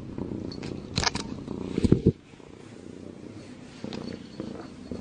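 A tabby kitten purring steadily. A few loud knocks and rubs cut in about one and two seconds in.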